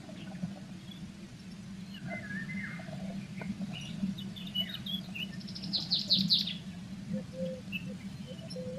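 Small songbirds chirping and calling in short scattered notes, with a quick rattling trill of high notes about six seconds in, over a steady low hum.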